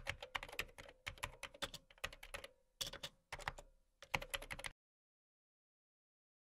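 Typing on a computer keyboard: a quick, uneven run of keystrokes that stops abruptly a little under five seconds in.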